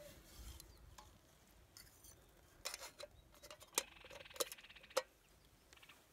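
Small metal kettle clinking as it is handled, its lid and wire handle knocking against the pot: a few sharp clinks from about three to five seconds in, one with a short metallic ring.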